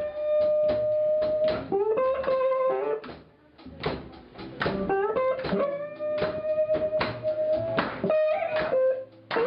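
Guitar playing a single-line melody: plucked notes and long held notes that slide up and down in pitch, with a short pause about three seconds in.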